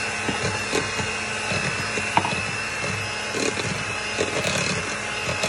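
Handheld electric mixer running steadily, its beaters creaming butter and powdered sugar in a bowl, with occasional clicks as the beaters knock against the bowl.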